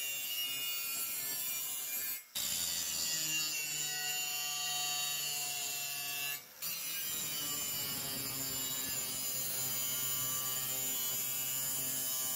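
Angle grinder with an abrasive disc grinding the edges of steel keel plates: a steady high whine over a rasping grind. It cuts out briefly twice, about two and six and a half seconds in.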